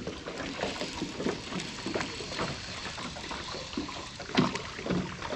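Low ambience on a boat on the water: light water lapping, with scattered small clicks and knocks and a faint voice about four seconds in.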